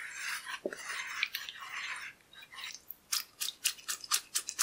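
A gloved hand swishing water in a plastic tub, mixing in baking soda, for about two and a half seconds. Then it lifts out, and water drips and flicks off the glove into the bath in a quick run of sharp splats, about five a second.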